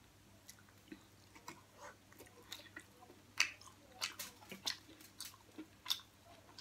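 Close-miked chewing of crispy fried pig head meat: soft, irregular wet mouth clicks and smacks, coming thicker about halfway through.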